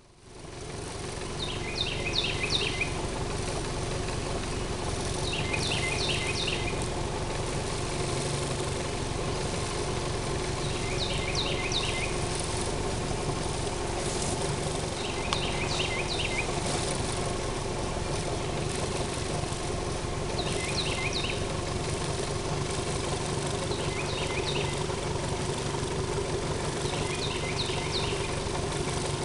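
Small boat outboard motor running steadily. Over it, a bird sings a short, rapid phrase of high notes seven times, a few seconds apart.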